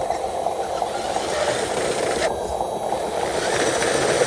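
Radio-controlled dump truck's electric drive motor and gearbox running with a steady whir as it drives over loose soil.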